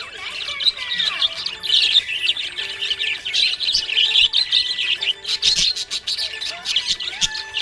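Several small pet parrots chirping and chattering together, with many high, quick calls overlapping in a continuous busy chorus.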